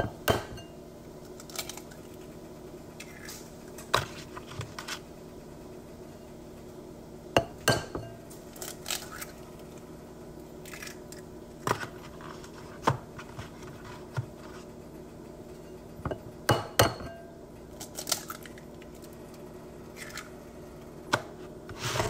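Eggshells cracking: a string of sharp, irregular cracks and taps every second or two, several in quick pairs, over a steady low hum.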